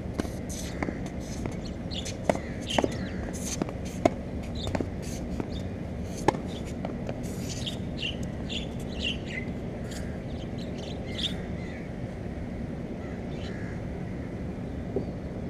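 Birds chirping in short, falling calls, clustered in the middle of the stretch, over a steady low background rumble. Several sharp knocks come in the first six seconds.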